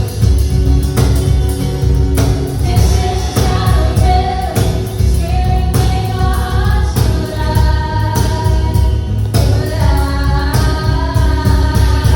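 Contemporary Christian worship song: voices singing long, held notes over a band with a steady beat and heavy bass.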